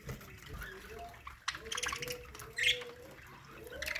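Budgerigars chirping: scattered short chirps, with a brighter cluster of them a little past halfway.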